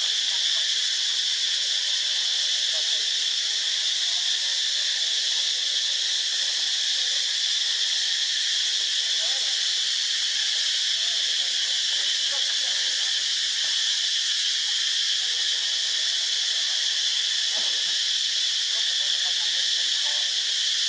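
Steady, high-pitched drone of a forest insect chorus that does not change in pitch or loudness.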